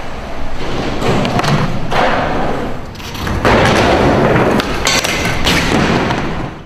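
Skateboard wheels rolling on concrete, broken by several sharp clacks and thuds of the board striking the ground and ramp.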